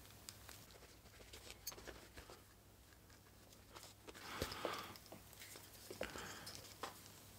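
Faint hand-stitching of leather: waxed artificial sinew thread being drawn through the stitch holes of a leather sheath, with small scattered clicks and handling rustles. There is a brief louder rasp a little after four seconds in and a weaker one about six seconds in.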